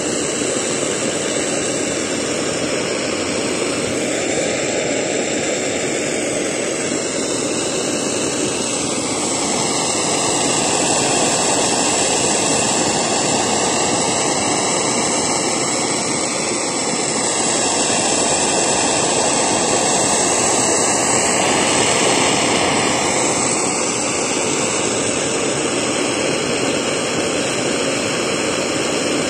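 Spit-Fire A-100 alcohol blow torch burning, its flame jetting from the nozzle with a steady rushing hiss whose tone slowly wavers.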